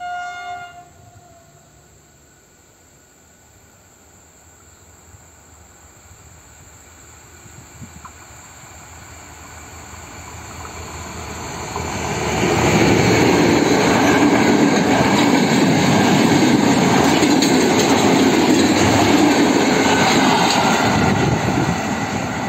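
SM42 diesel locomotive sounding one short horn blast of about a second as it approaches, then its engine and wheels grow steadily louder until it passes close by about twelve seconds in. A string of empty flat wagons follows, clattering over the rail joints, a little quieter near the end.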